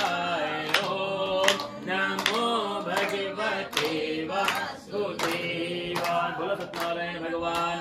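Sanskrit puja mantras chanted in a sing-song, melodic voice.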